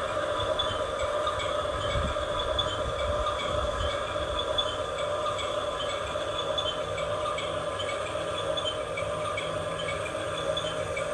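Small electric motors and gearboxes of a radio-controlled construction model running steadily with a high whine and a rapid run of light clicks. A low rumble joins in for a couple of seconds near the start.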